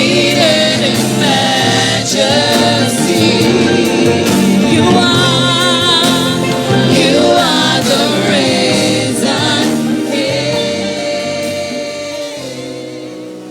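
Gospel worship singing with instrumental accompaniment, the voices holding long wavering notes; the music fades down toward the end.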